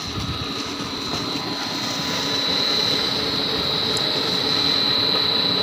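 Electric motor of a 15 HP centrifugal water pump running on an inverter, giving a steady high whine over a mechanical hum. The sound grows louder toward the end as the motor comes close.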